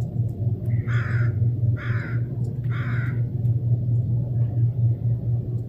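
A crow cawing three times, about a second apart, over a steady low rumble.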